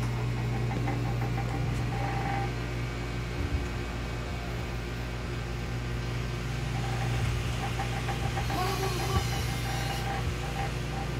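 Pen-style rotary tattoo machine running with a steady low hum as the needle works ink into skin.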